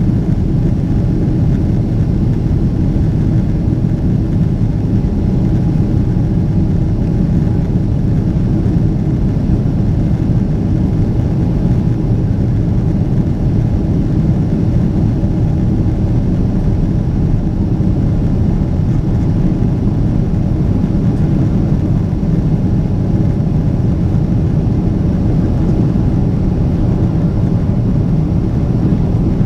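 Boeing 777-300ER's GE90 jet engines and airflow heard inside the passenger cabin: a loud, steady rumble with a faint hum on top, holding even throughout.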